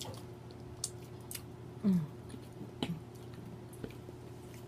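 Close-up eating sounds: wet mouth smacking and chewing with scattered sharp clicks, and a short low vocal sound falling in pitch about two seconds in.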